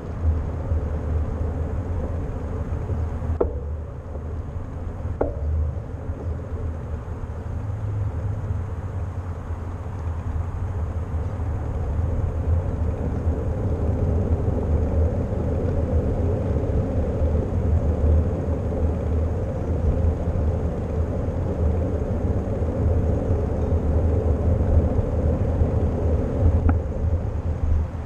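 Wind rumble on a bicycle-mounted GoPro's microphone while riding, with the hum of tyres rolling on asphalt. Three short sharp clicks come through, once a few seconds in, again a couple of seconds later, and once near the end.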